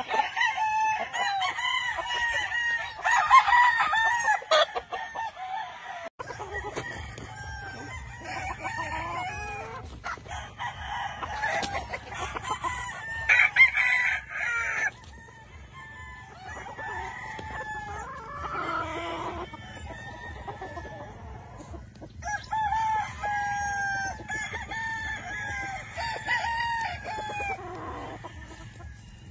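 Several game roosters crowing, one call after another and often overlapping. A low steady hum comes in about six seconds in.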